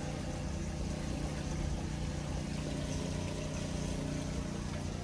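The boat's electric pressure water pump running with a steady, even hum.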